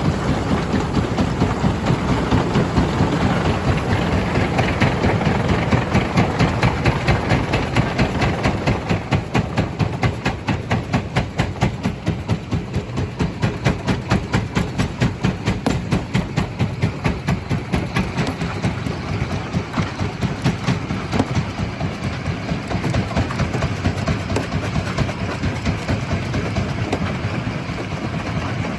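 Stone crusher machine running, with a fast, even pulse over a steady rumble and grinding noise.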